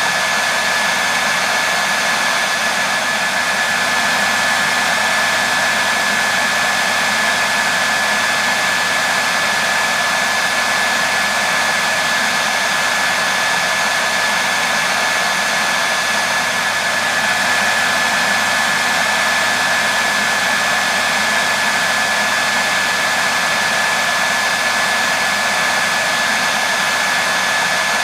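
Hair dryer running continuously at a constant setting: a steady, even rush of air with a steady whine from the motor and fan.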